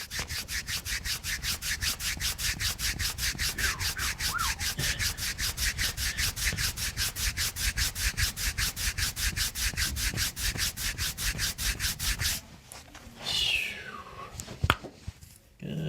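Hands briskly rubbing the skin of bare feet in an even rhythm of about four or five strokes a second. The rubbing stops abruptly about twelve seconds in. A brief falling squeak and a few sharp clicks follow near the end.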